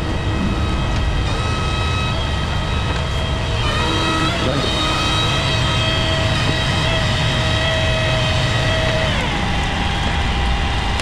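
Crane's diesel engine running under load with a steady whine from its hydraulics. The whine steps up about four seconds in and shifts pitch near the end as the load is moved.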